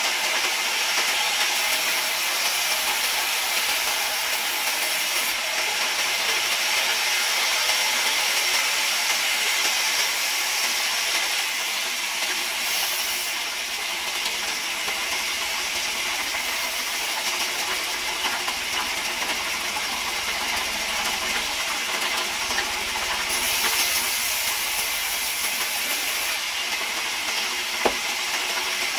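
Large vertical band saw ripping a wooden plank lengthwise: a steady, hissing rush of the blade running through the wood. A single sharp knock comes near the end.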